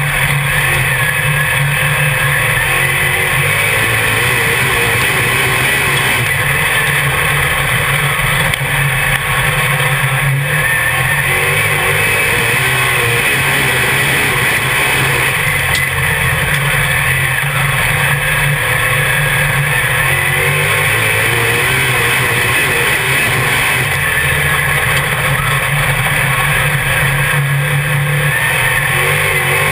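Dirt Modified race car's V8 engine heard from inside the cockpit, running hard at racing speed. The engine note eases off and picks back up about every seven to eight seconds, the driver lifting for each pair of turns on the oval.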